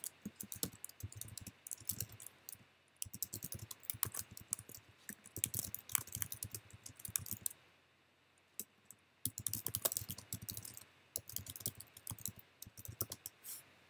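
Computer keyboard being typed on in quick bursts of keystrokes, with a pause of about two seconds a little past the middle.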